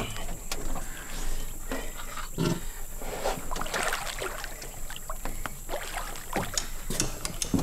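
Water sloshing and splashing around a large alligator's tail as its body is hauled over the side of a boat, with irregular knocks and scrapes of the body against the boat's side.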